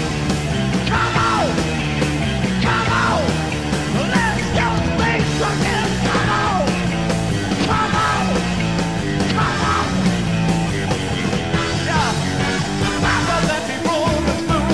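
Rock music with sung, partly yelled vocals over a steady bass line and drums.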